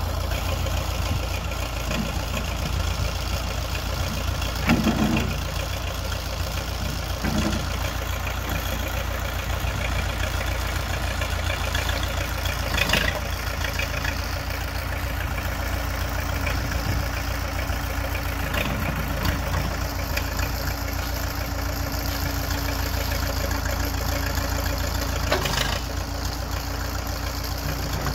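Case 580C backhoe's freshly rebuilt 207D four-cylinder diesel engine running steadily at idle. A few short clunks stand out over the engine at intervals.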